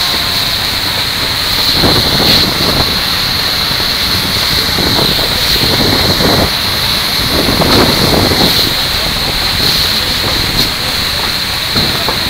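Fire hose spraying water at full pressure: a loud, steady rushing hiss, with a few short thumps and splashes.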